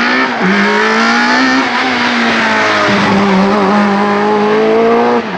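Citroën C2 VTS hillclimb race car's four-cylinder 1.6-litre engine at high revs as the car approaches and passes. The pitch climbs through each gear, with quick upshifts about half a second in, about three seconds in and near the end.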